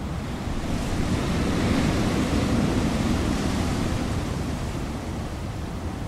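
Wind blowing in a steady rush of noise that swells to a gust about two seconds in and then eases off.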